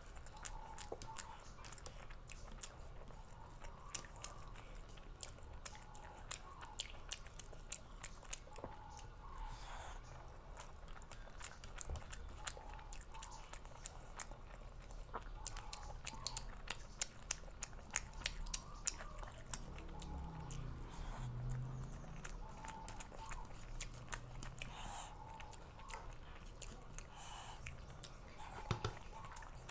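Close-miked chewing and biting while eating a meal: a dense run of small wet mouth clicks and smacks, with some crunching.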